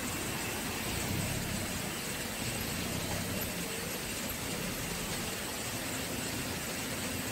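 A Maruti Gypsy 4x4 on the move, its engine running steadily under an even hiss of tyre and wind noise.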